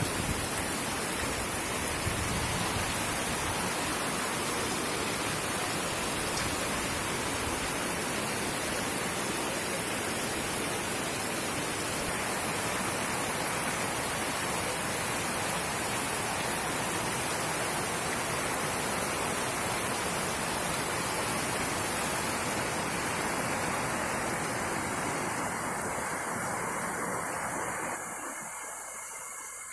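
Heavy rain falling hard, a steady dense hiss. Near the end it drops and thins.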